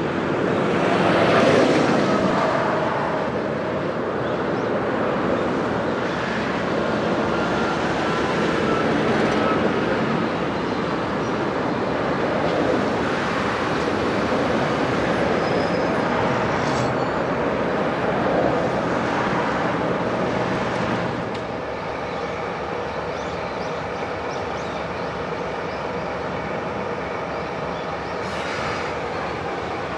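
KD55 diesel locomotive hauling a train of tank wagons, its engine running as it approaches at low speed and draws to a halt. The noise drops noticeably about two-thirds of the way through, with a brief hiss near the end.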